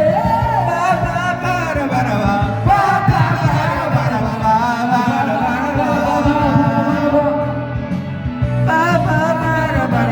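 Karaoke backing track playing with a voice singing along to it.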